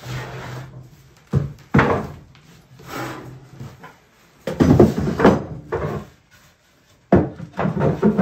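Wooden beehive boxes handled on a workbench: a series of wood-on-wood knocks and scrapes as the boxes are lifted and set down, busiest in the middle and again near the end.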